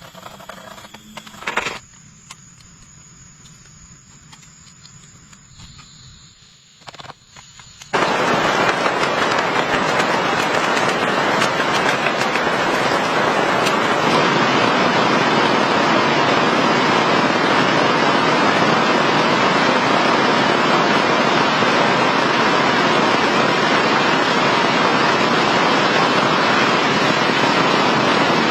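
Heavy rain falling, a loud steady hiss with crackling patter, that starts abruptly about eight seconds in. Before it, quieter with a few scattered clicks and knocks.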